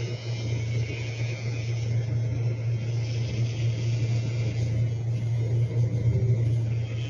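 Battery-powered pet nail grinder running with a steady low hum, its rotating tip sanding down a French bulldog's nails, the higher grinding hiss coming and going as it touches the nail.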